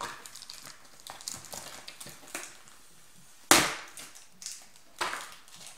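Cardboard and plastic toy packaging being handled and pulled apart: scattered crinkles and clicks, with a sharp knock about three and a half seconds in and a smaller one about a second and a half later.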